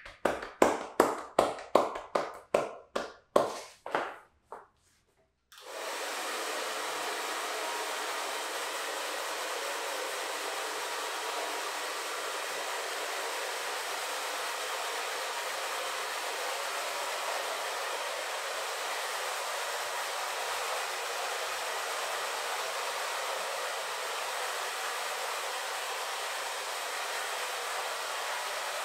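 Rapid hand strikes of a percussive massage, about three a second, stopping a little over four seconds in. About a second later a hair dryer switches on and runs steadily.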